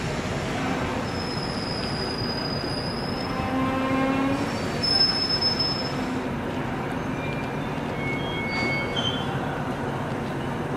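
Passenger train running on the rails: a steady rumble, with short high-pitched wheel squeals coming and going.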